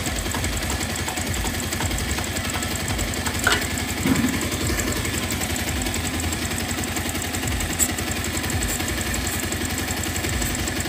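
Motorcycle engine idling steadily, heard close to the crankcase, with a few short sharp clicks over it.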